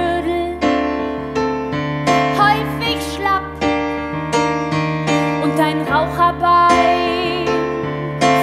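Yamaha CP stage piano playing a chanson accompaniment, with a woman singing over it.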